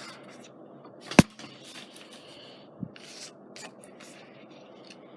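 Paper and craft pieces being handled on a work surface: short rustles and scrapes, with one sharp tap about a second in and a softer knock near the three-second mark.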